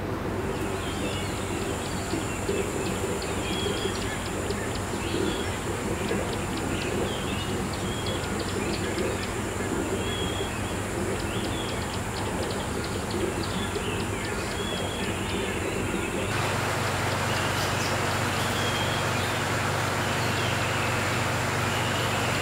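Aquarium air pumps and filtration running with a steady hum and the hiss of bubbling water, with small birds chirping in the background. About 16 seconds in, the hum gets louder and the hiss stronger.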